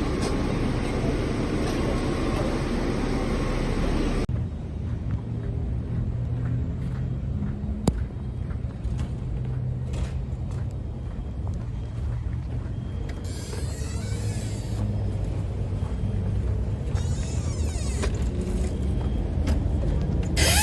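Steady low rumble of a vehicle on the move, as heard from inside it. About four seconds in, a louder hissing noise gives way to a quieter, steadier rumble, with one sharp click partway through.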